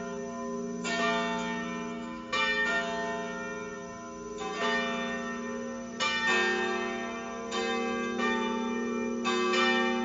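Church tower bells pealing: several bells struck at uneven intervals, roughly every second or so, each strike ringing on and overlapping the next.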